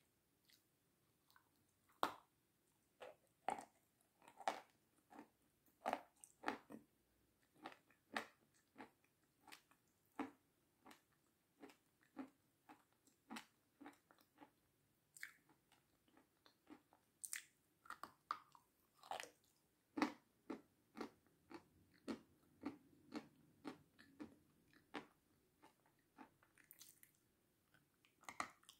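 Close-miked bites and chewing of crisp meringue coated in sour cream: a run of sharp crunches, about one or two a second.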